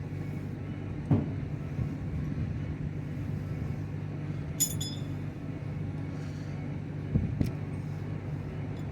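Steady low hum, with a few metal knocks and one bright ringing clink of metal on metal about four and a half seconds in, as a chisel bit and tools are handled against the work; the air hammer itself is not firing.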